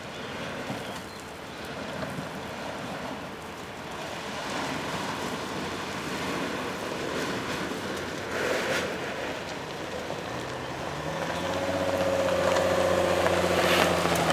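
Mercedes-Benz GLE SUV descending a steep dirt track, with wind and faint tyre noise at first. Over the last few seconds its engine hum grows louder and rises slightly in pitch as it comes close, ending in louder tyre crunch on gravel.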